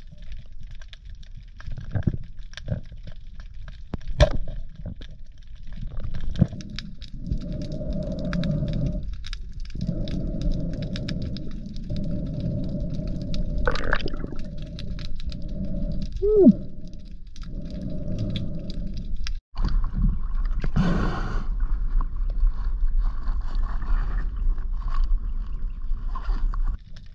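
Muffled underwater sound from a dive camera: scattered clicks and ticks, then long stretches of low rushing water noise. After a sudden break about two-thirds through, a steadier rush of wind and water at the surface follows.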